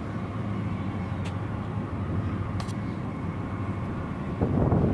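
Steady low outdoor rumble of wind buffeting the microphone, swelling into a louder gust near the end.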